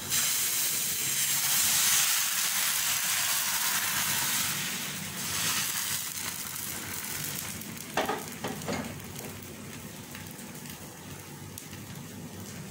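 Dosa batter sizzling as it is spread thin in a hot non-stick frying pan with a steel ladle, the sizzle strongest in the first few seconds and then fading as the pancake sets. A few sharp knocks about eight seconds in.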